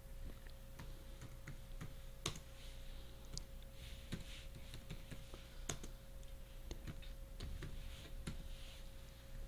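Computer keyboard typing: faint, irregular keystroke clicks over a steady faint hum.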